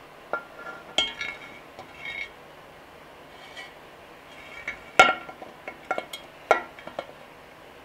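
Cast aluminium timing cover of a Pontiac 350 V8 clinking against the engine block and its studs as it is pushed into place: a scatter of light, ringing metallic clinks, the sharpest about five seconds in.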